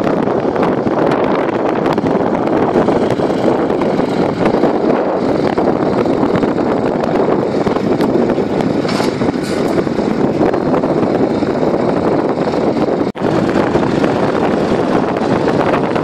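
Claas Arion 410 tractor's diesel engine running steadily while its front loader lifts and tips manure, with wind rumbling on the microphone. The sound drops out briefly about thirteen seconds in.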